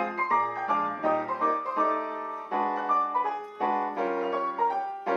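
A pianola, a foot-pedalled, vacuum-operated player piano, playing a tune from its perforated roll, with chords and melody notes struck in quick succession.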